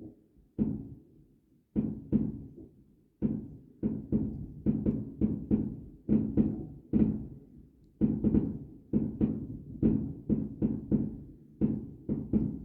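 Fireworks bursting overhead: a rapid, irregular string of deep booms, each with a short echoing tail, coming thicker and faster after the first few seconds.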